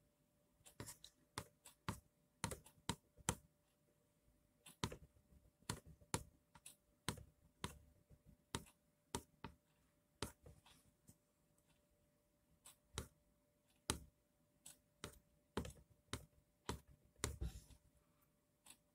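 A series of light, sharp clicks at irregular intervals, often about two a second, over a faint steady hum.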